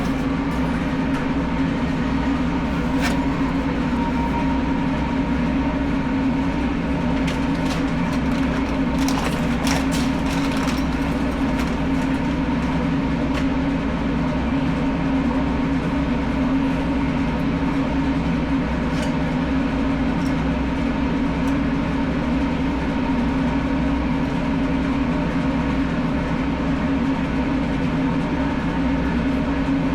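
Steady machine hum that runs on unchanged, with a few faint clicks about a third of the way in.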